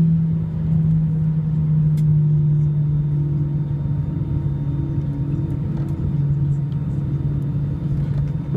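Cabin noise of an Airbus A319-113 rolling along the runway after landing: a steady low engine drone from its CFM56 turbofans over the rumble of the wheels, dropping slightly in pitch about six seconds in.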